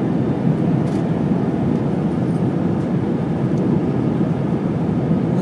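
Steady drone of an Airbus A320's jet engines and rushing airflow, heard inside the cabin beside the wing during descent on approach to landing.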